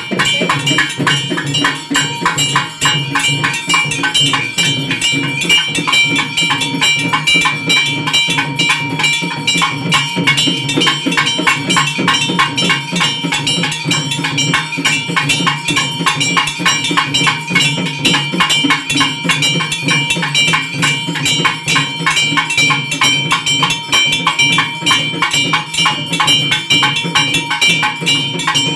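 Festival drumming: drums beaten in a fast, even rhythm, with a steady ringing metallic tone held above the beat.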